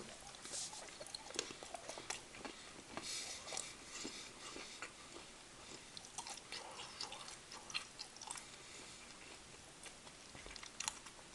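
Faint chewing of a piece of 70% cocoa dark chocolate, with irregular small mouth clicks and crackles.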